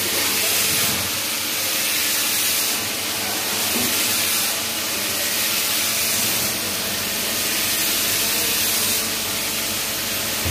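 CNC lathe running and turning a steel shaft with an insert tool, heard as a steady hissing machining noise that swells and eases every couple of seconds.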